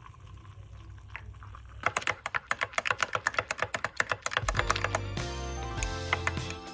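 A fast run of sharp clicks, about eight a second, for a couple of seconds, then background music with a steady bass line comes in.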